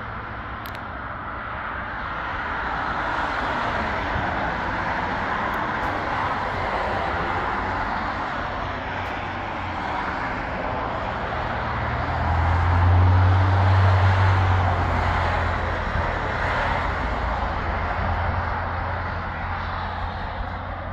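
Road traffic passing, a wash of tyre and engine noise that swells and fades as vehicles go by. The loudest pass, about two-thirds of the way through, carries a low engine hum.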